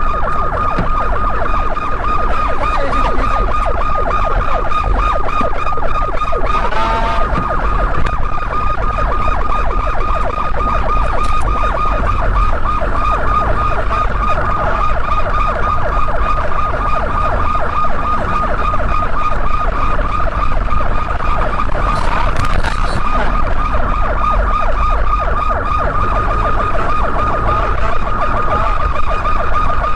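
Police car siren sounding a fast, steady warble, over the low rumble of a car driving at highway speed.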